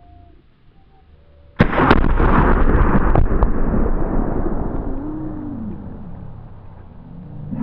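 Tannerite exploding target set off by a rifle shot: one sudden, loud blast about a second and a half in, followed by a long rumbling echo that slowly fades over several seconds.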